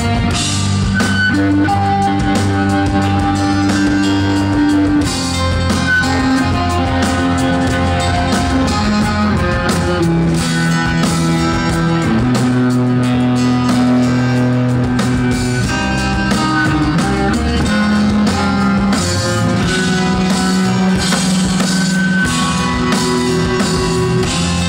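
An instrumental post-rock band playing live: electric guitar lines over drum kits, with held low notes under a shifting melody.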